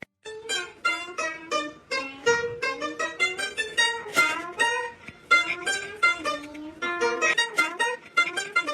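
Background music: a quick, bouncy tune on a plucked string instrument, many short notes picked in quick succession.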